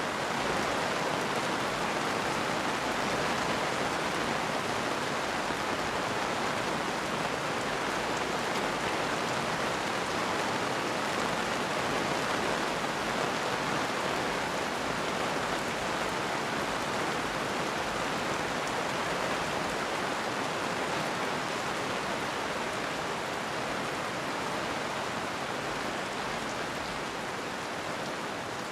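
Steady rainfall: an even hiss of many drops falling on a surface, with no thunder, easing slightly near the end.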